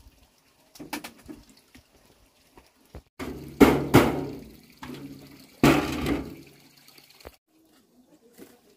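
Water splashing in two loud bursts, about three and five and a half seconds in, each fading away, with a few light knocks before them.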